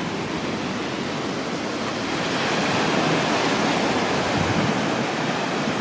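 Ocean surf breaking and washing up a sandy beach: a steady rush that swells a little about two seconds in.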